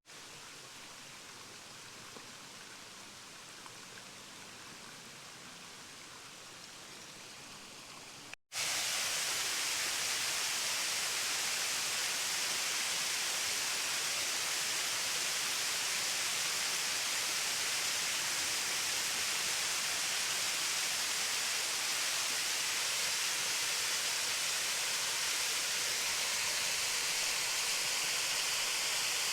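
Steady rushing of a waterfall on a rain-swollen river, fainter at first, then after a sudden cut about eight seconds in, much louder and close.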